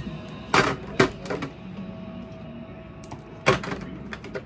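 Small hard items clacking and knocking together as toiletries and hair accessories are sorted and packed away by hand: a few sharp knocks, about half a second in, a second in, and again near three and a half seconds.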